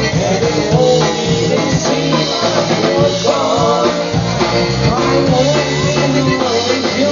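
Live polka band playing dance music: a sung melody over a steady bass line and drum beat.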